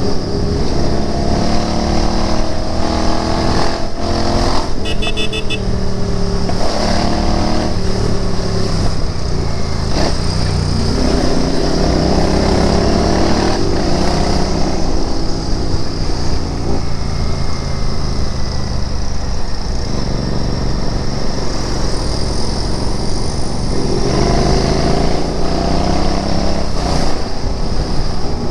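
Royal Enfield Interceptor 650's parallel-twin engine under way, its pitch rising and falling again and again as the bike accelerates and shifts gear. A brief run of high beeps sounds about five seconds in.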